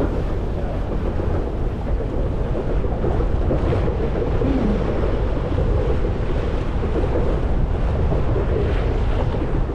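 Wind buffeting a camera microphone on a sailboat's bow: a steady, heavy rumble, with water rushing along the hull under it.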